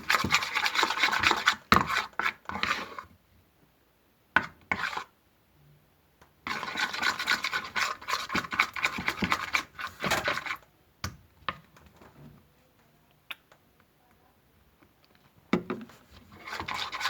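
Small spoon scraping and stirring in a bowl as white glue and borax activator are mixed into slime, in several spells of scraping with quiet pauses between.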